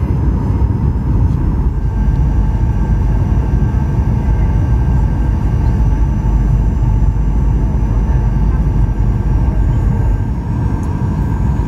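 Cabin noise inside a Boeing 737 during its approach, heard from a window seat beside the jet engine: a steady, heavy low rumble of engine and airflow with a constant whine on top.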